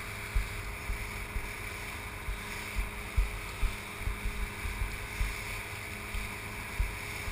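Fast rescue boat's engine running steadily at speed, with the hiss of spray along the hull and wind buffeting the microphone in irregular low thumps.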